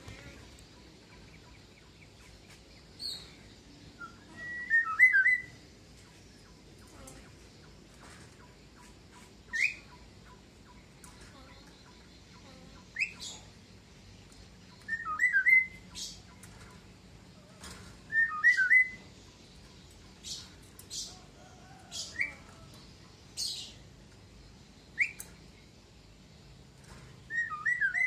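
Caged Javan myna calling in short separate calls every second or two: quick rising whistles mixed with squeaky warbled phrases, the warbled ones the loudest.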